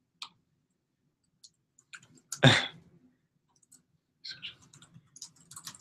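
Scattered clicks of a computer keyboard and mouse, growing busier near the end, with one louder thump about two and a half seconds in.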